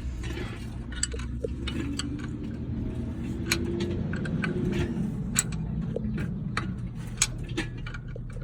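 Scattered light metallic clicks and clinks of tools and drum-brake parts being handled during reassembly, over a steady low hum.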